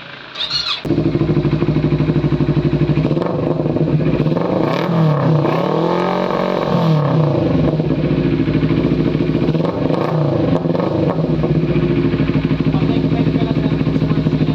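CF Moto NK400's 400 cc parallel-twin engine running steadily through its exhaust muffler, coming in loud about a second in.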